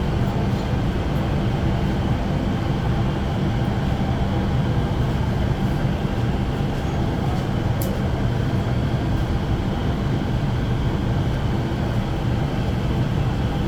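Kettle-making workshop machinery running steadily: a continuous low drone with a constant rush of noise over it, unchanging throughout.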